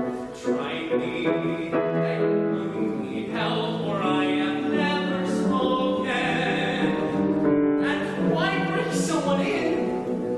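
Male voice singing a musical-theatre song in a trained, operatic style, with held notes wavering in vibrato, over piano accompaniment.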